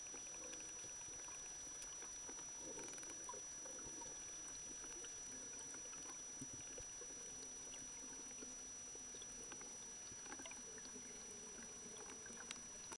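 Underwater ambience from a dolphin pod: a faint steady hiss with scattered clicks and a short, rapid train of evenly spaced clicks near the start, typical of dolphin echolocation.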